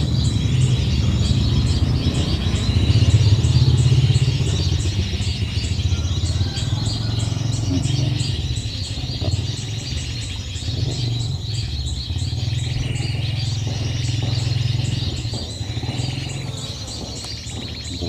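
A motor engine rumbling. It swells to its loudest about three to four seconds in, then slowly fades away near the end. Throughout, high bird chirping repeats at an even pace.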